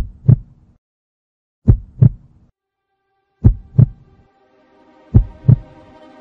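Heartbeat sound effect: slow, heavy double thumps (lub-dub), four pairs about 1.7 seconds apart. A low held chord of music swells in under them about two-thirds of the way through.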